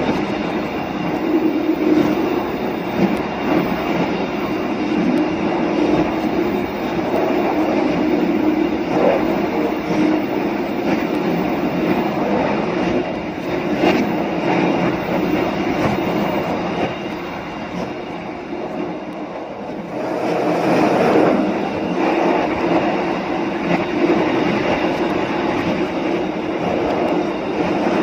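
Train running along the track: a steady rumble of wheels on rail with a few faint clicks. It eases off a little about two-thirds of the way through, then picks up again.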